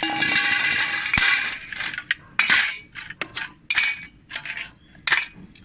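Raw crabs being handled on a steel scale pan and tipped into a steel bowl, their shells and the metal clattering: a dense scraping clatter for about two seconds, then a string of separate knocks and clinks.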